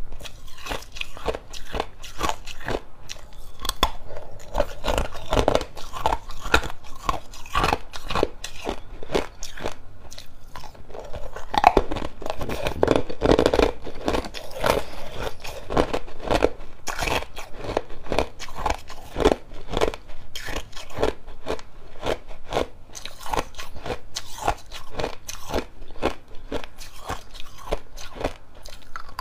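Clear ice cubes being bitten and chewed close to the microphone: a steady run of sharp, cracking crunches.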